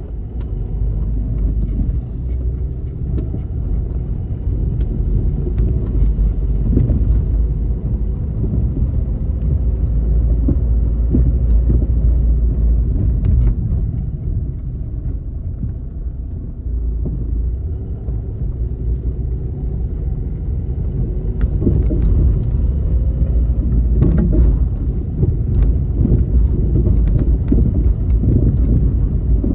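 Steady low rumble of engine and tyre noise heard from inside a moving car's cabin as it drives along a city street.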